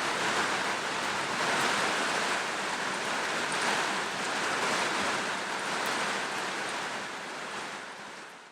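Steady night-time rainforest ambience: a dense, even hiss with no distinct calls standing out, fading out near the end.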